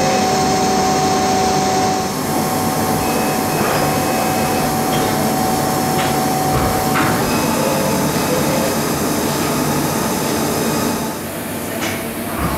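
1991 Hitachi Seiki 4NEII-600 CNC lathe running: a steady mechanical hum with a held whine that drops out about seven seconds in, and a few sharp clicks in the middle.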